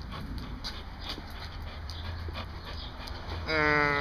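Dog panting and scuffling during tug-of-war with a rubber mat, then a loud, drawn-out whine that starts about three and a half seconds in and holds one pitch.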